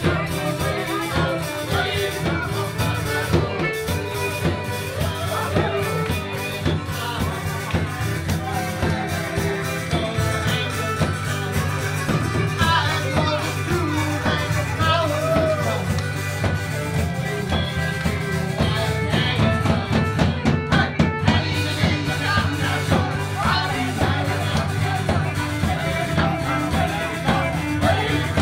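Live rock band playing: drum kit, a male singer at a microphone and a steady bass line, loud throughout.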